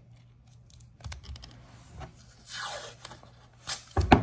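Blue painter's tape being pulled and torn off the roll and pressed on, with small rustles and clicks of handling, a rasping tear about two and a half seconds in, and a loud thump near the end.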